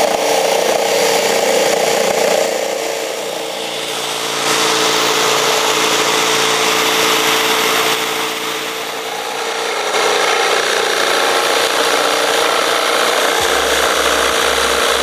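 Electric drill driving a reciprocating jigsaw adapter, sawing through a 30 mm wooden board, then PVC pipe, then a 2.5 mm metal sheet: a steady motor whine under the rasp of the blade, dropping in level twice between cuts. A low music beat comes in near the end.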